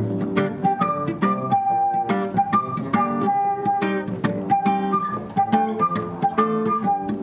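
Instrumental break of an acoustic reggae song: acoustic guitar strumming a steady rhythm under a melody of short held notes that step between two pitches, with no singing.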